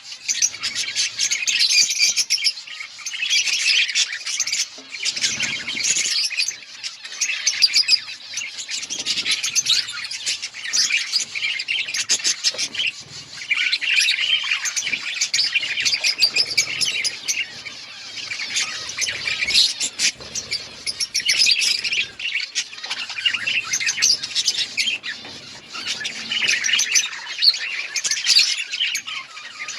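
A flock of budgerigars chirping and chattering together in an outdoor colony aviary: dense, overlapping warbles and squawks without a break.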